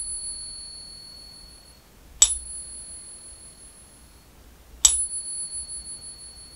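Morgan silver dollar held in a Pocket Pinger coin tester, tapped twice and ringing with a clear, high, bell-like tone that fades over about two seconds after each tap; the ring from a tap just before is fading at the start. The coin-test app passes this ring three of three, the sound of genuine silver.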